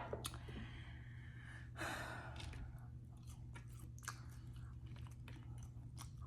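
Close-up chewing of crunchy fried food, with many small irregular crunches and wet mouth clicks and a short breath about two seconds in.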